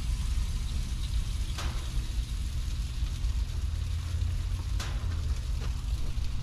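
Steady low rumbling background noise with a light hiss, and a couple of faint ticks about one and a half seconds and five seconds in.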